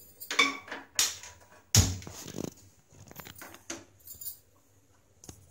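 Metal kitchen pots and utensils being handled: a few separate knocks and clinks, the loudest a sharp clank about two seconds in that rings briefly, then fainter clinks.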